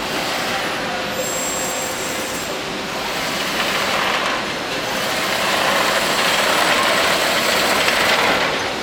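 DAMA HDC 1640 high-speed CNC drilling machine running with a steady hissing machine noise, which grows louder a little past the middle and drops back near the end.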